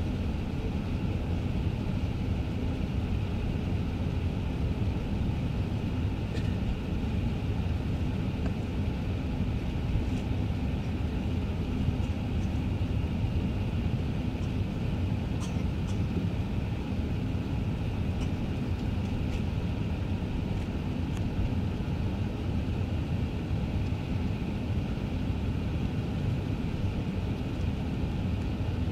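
Cabin noise inside an Airbus A380 taxiing: a steady low rumble from the engines at taxi power and the airframe rolling on the taxiway, with a few faint clicks.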